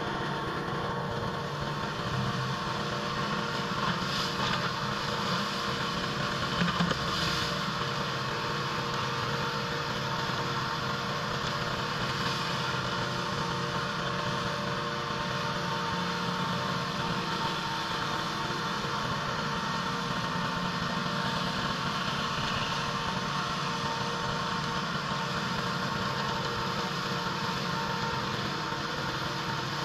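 Pressure washer running steadily, its engine droning under a constant hiss, with a brief louder moment about seven seconds in.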